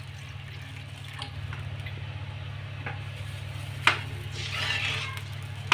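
Water trickling from a plastic bowl into a wok of chili paste, over a steady low hum. A sharp knock comes just before four seconds in, followed by a brief rustle.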